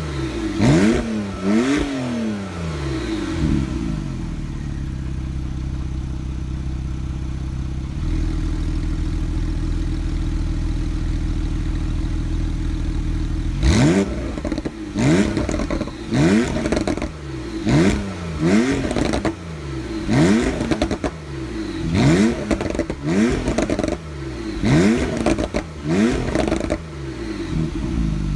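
Performance car engine with a loud aftermarket exhaust being blipped in quick revs. A few short revs come first, then it idles steadily for about ten seconds, then there is a run of sharp revs about once a second, each rising and falling quickly.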